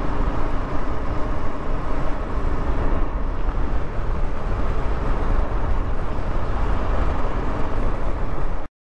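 Steady rumble of riding on a KTM 390 Adventure motorcycle: engine and wind noise on the camera microphone, cutting off abruptly near the end.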